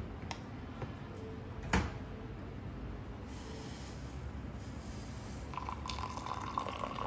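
A sharp knock about two seconds in, then, near the end, milk poured from a steel saucepan into a glass tumbler: a splashing stream with a steady filling tone.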